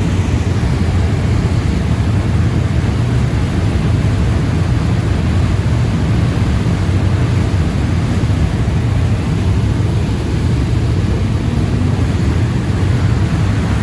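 Loud, steady outdoor noise in a town street picked up on a phone microphone with no external mic, heavy in low rumble with a hiss spread above it.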